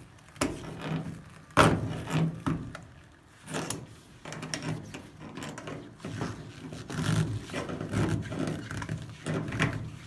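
Irregular metal clicks and knocks of a wrench working the threaded fittings of braided steel water-supply hoses as they are unscrewed from a washing machine's inlet valves, with handling noise; the sharpest knock comes about one and a half seconds in.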